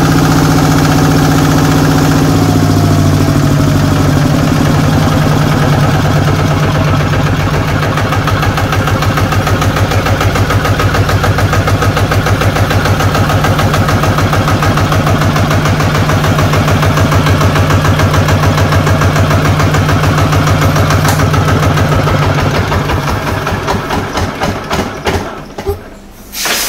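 Hinota RT 155 single-cylinder diesel engine running: its speed drops in the first few seconds, then it idles with a steady, even beat. A few seconds before the end the beats slow and spread out and the engine winds down to a stop, as when it is shut off.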